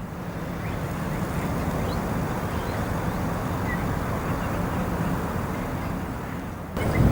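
Steady low hum of the arriving ferry Mega Smeralda's engines and machinery, carrying a steady low tone. Near the end it jumps suddenly to a louder, gusty low rumble.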